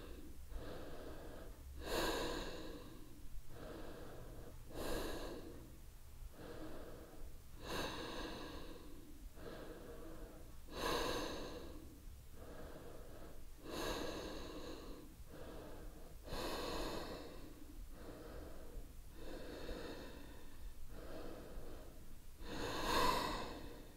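A woman breathing audibly while holding a yoga pose: slow, even inhales and exhales through the nose and mouth, a soft rush of air roughly every second and a half.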